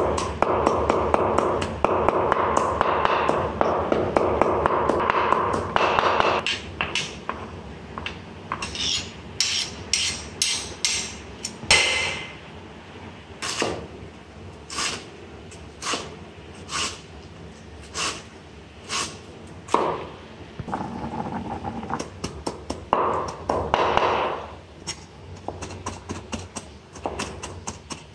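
Cleaver chopping on a thick round wooden chopping board, mincing shallots and lemongrass. It goes in rapid continuous chopping for about the first six seconds, then slower single knocks about a second apart, then fast chopping again near the end.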